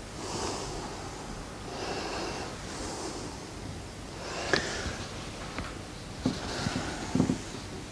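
A man breathing audibly through his nose close to a clip-on microphone, a soft puff about every second, with a few faint clicks of small handling noise around the middle and near the end.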